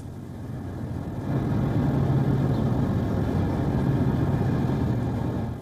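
A motor vehicle's engine running steadily with a low hum, growing louder about a second in and cutting off at the end.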